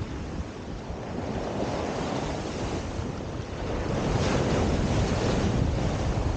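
Sea waves breaking and washing up a pebble shore, with wind buffeting the microphone; the surf grows louder about four seconds in.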